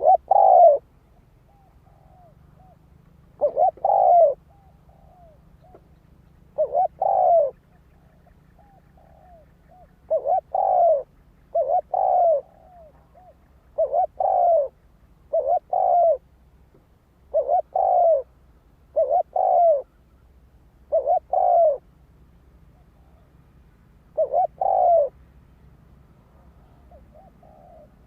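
Spotted dove cooing: a male's repeated crowing coo, short phrases of two or three quick notes about a second long, repeated every two to three seconds, about eleven times.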